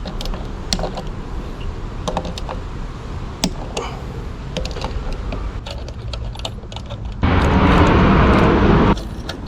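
Metal parts and tools clinking and tapping in scattered light knocks while a washing machine is taken apart, followed about seven seconds in by a loud, even rushing noise of about two seconds that starts and stops abruptly.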